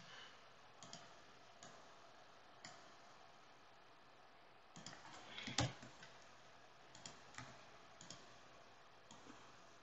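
Faint, scattered clicks of a computer keyboard and mouse, a few isolated taps with a short cluster about five to six seconds in.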